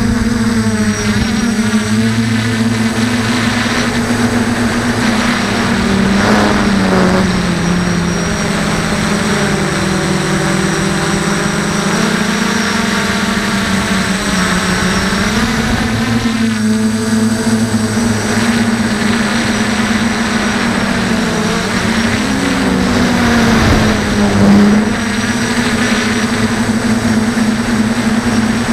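Electric motors and propellers of a DJI F450 quadcopter buzzing close to the microphone of a camera mounted on its frame. The pitch sags for a few seconds about a third of the way in, then rises back, wavering again later as the throttle changes.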